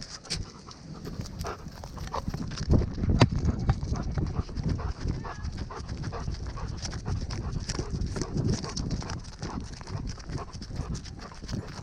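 A dog trotting through the woods, heard from a camera strapped to it: a quick, uneven run of footfalls and rustling close on the microphone.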